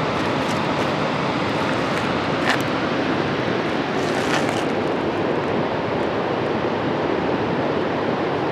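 Waterfall and river white water rushing in a steady, even noise, with a couple of brief ticks near the middle.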